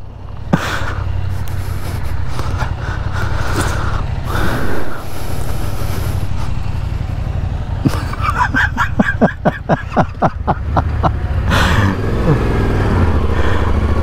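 Adventure motorcycle engine running at low speed while riding slowly, a steady low rumble heard from the rider's own bike.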